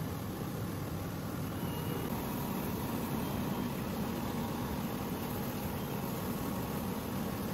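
Fabric laser cutting machine running: a steady low hum with an even hiss, unchanging throughout.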